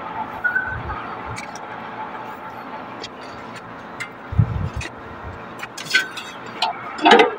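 Steady background hum with scattered light clicks and taps as a replacement air-conditioner condenser fan motor and its wire lead are handled, a few dull thuds a little past halfway and a louder knock near the end.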